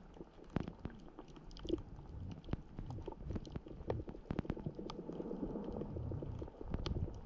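Underwater sound on a shallow coral reef: a low, muffled rumble of moving water with many scattered sharp clicks and crackles.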